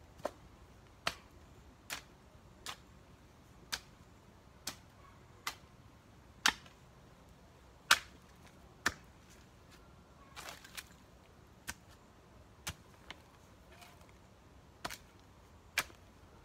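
A long-handled garden hoe chopping into soil: short, sharp strikes about once a second, some louder than others, with a quick double strike near the middle.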